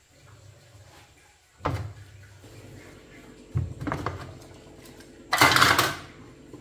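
Knocks and clatter of household objects: a sharp knock a little under two seconds in, two more around four seconds, and a louder burst of noise lasting about half a second near the end.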